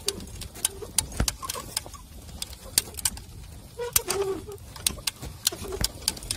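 Homemade hand-pushed oat seeder being pushed along a furrow, its sprocket-and-chain drive and seed-metering mechanism clicking irregularly, one to three clicks a second. A few short low tones sound in between, a longer one about four seconds in.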